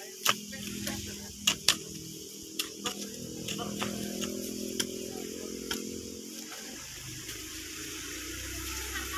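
A hand hoe chopping and scraping into loose, clumpy soil while porang tubers are dug out: a series of sharp, irregular strikes over a steady low hum.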